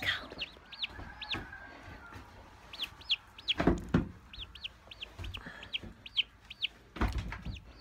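Baby chick peeping over and over in short, high chirps. Two louder knocks or thumps come just under four seconds in and again near the end.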